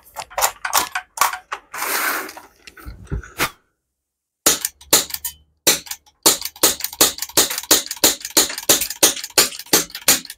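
Rapid string of sharp shots from an M4-style air rifle fired at a breeze block, about three to four a second, with a short pause partway through. A brief rushing noise comes about two seconds in.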